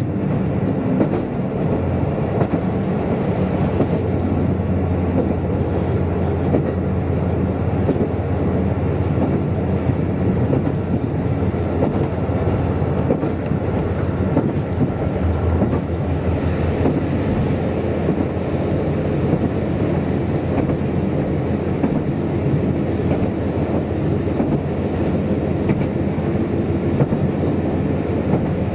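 Running noise of a KiHa 185 diesel limited-express railcar at speed, heard from inside the car: a steady low engine and rolling drone with wheels clicking now and then over rail joints.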